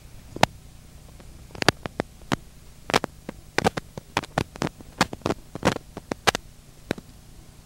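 Irregular footsteps on a rocky trail, sharp hard steps that come several a second from about a second and a half in, over a steady low hum from the camcorder.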